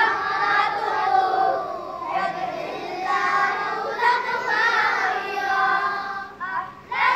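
A group of boys singing together, with a short break near the end.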